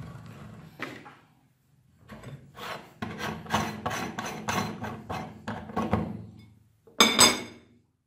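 The threaded retaining ring on the front of a metal meat grinder being unscrewed by hand in short rasping turns, about three a second, metal grating on the crumb-clogged threads. The loose ring then knocks twice against a ceramic plate as it is set down, the loudest sound.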